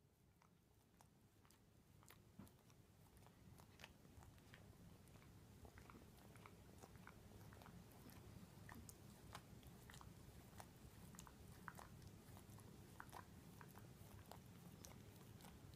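A long-haired miniature dachshund licking another dog's face and ears. Faint wet tongue clicks and smacks come irregularly, a few a second, over a low room hum.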